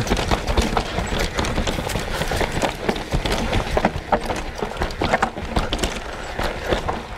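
29er mountain bike descending rough dirt singletrack at speed: tyre noise over dirt and roots with many irregular knocks and rattles from the bike over a steady low rumble.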